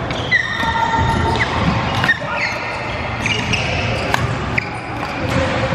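Badminton rally: court shoes squeaking sharply on the sports floor as players lunge and shift, with sharp racket strikes on the shuttlecock, one of them a jump smash about four seconds in. Other games on neighbouring courts add squeaks and hits in a reverberant sports hall.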